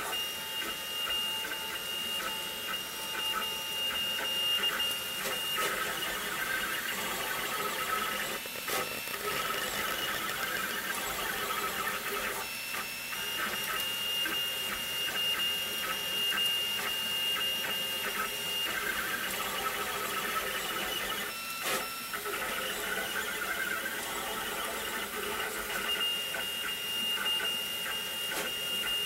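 Printrbot Play desktop 3D printer printing in PLA: its stepper motors whine in held high tones that break off and change every few seconds as the print head and bed switch moves. Two brief clicks come through, about a third of the way in and again about three quarters in.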